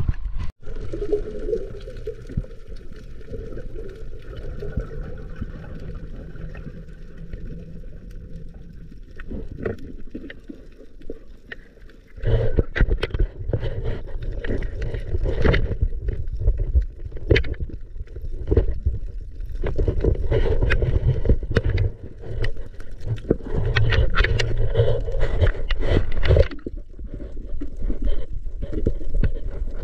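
Water sloshing and gurgling close to the microphone, with irregular knocks and scrapes, getting louder about twelve seconds in.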